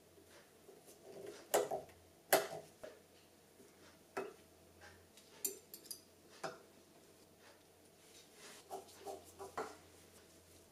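Light metallic clicks and taps of small titanium and gold jewelry parts being fitted together and screwed with a precision screwdriver, coming irregularly. The loudest are two sharp taps close together about two seconds in.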